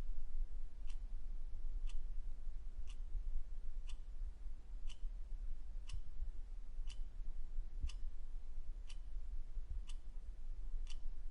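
A clock ticking steadily once a second, each tick short and light, over a steady low hum.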